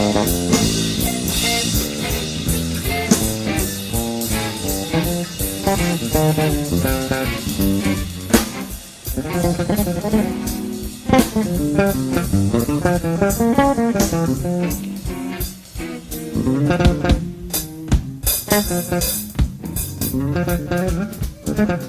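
Instrumental jazz-fusion jam led by a fretless electric bass, with guitar and drum kit. The bass plays fast runs of notes that thin out briefly a few times.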